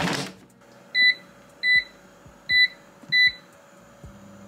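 COSORI air fryer: the basket shuts with a brief scrape, then the touch panel beeps four times as the cook is set and started. A low hum from the fryer starts near the end.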